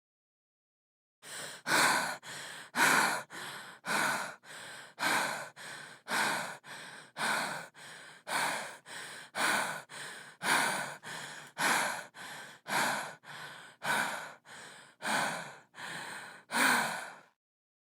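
A woman breathing heavily and quickly, about one breath a second, each a loud breath followed by a softer one, as in labour. The breathing starts about a second in and stops shortly before the end.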